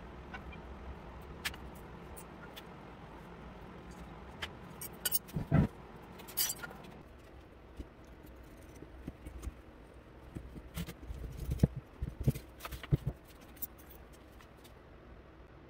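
Scattered clicks, taps and knocks of parts and tools being handled during the arbor press rebuild, bunched about five seconds in and again around eleven to thirteen seconds. A low background hum drops away about seven seconds in.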